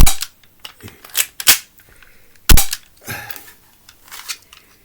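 Cheap BB pistol being worked and fired: a series of sharp clacks from its slide and firing mechanism, the loudest about two and a half seconds in, with a short rattle around three seconds.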